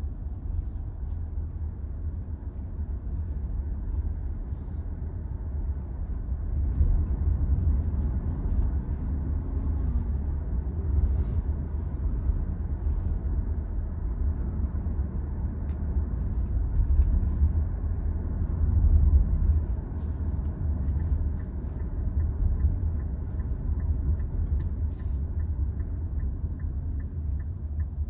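Steady road and tyre rumble heard inside the cabin of a moving Nissan Ariya electric SUV. It grows louder about a quarter of the way in and again past the middle. A light, regular ticking, about three a second, joins in about two-thirds of the way through.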